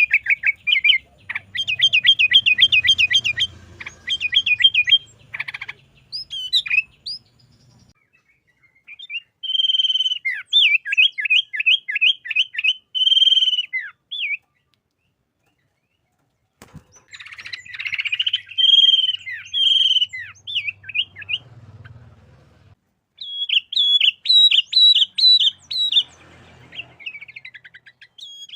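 Sooty-headed bulbul (kutilang) singing: bursts of fast, repeated chattering notes in phrases a few seconds long, broken by short pauses.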